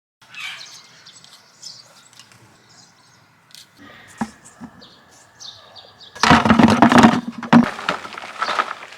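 Small birds chirping in short, scattered calls. Past the middle comes a loud noisy rustle lasting about a second and a half, with a few fainter rustles after it.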